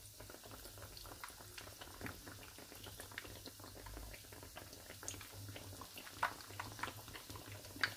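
Hot oil sizzling and crackling steadily as pieces of yogurt dough deep-fry in a frying pan, with a few louder pops near the end.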